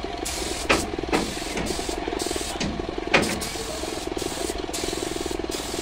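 Compressed-air spray gun hissing in short, repeated spurts as red primer is sprayed onto a steel truck body, over a steady motor drone. A few sharp knocks stand out, the loudest about three seconds in.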